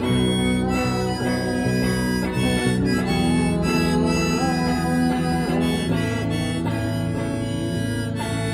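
A blues song played live as an instrumental passage: a harmonica holds and bends notes over a strummed guitar.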